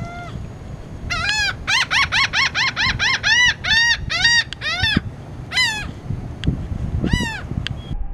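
Laughing gull giving its laughing call: a fast run of about a dozen loud notes, each rising then falling in pitch, from about one second in to five seconds, then two single calls near the end.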